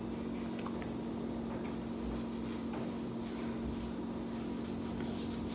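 Quiet room tone: a steady low hum with a faint hiss, and a few faint small clicks and rustles.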